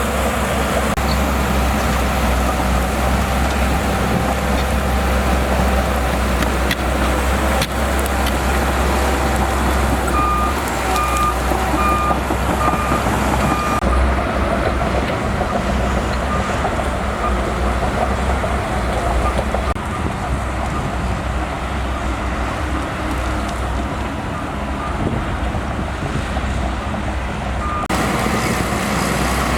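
Shantui DH17C2 bulldozer's diesel engine running under load with a steady low rumble. About a third of the way in, its reversing alarm beeps about seven times at a steady pace as it backs up. The sound turns duller near the middle and brightens again near the end.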